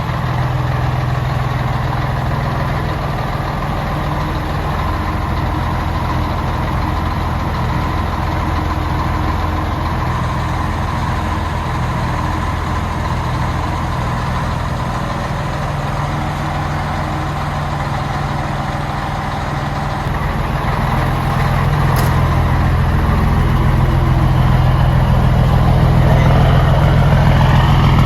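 Scania truck's diesel engine idling through its exhaust, a steady low rumble that gets somewhat louder over the last several seconds.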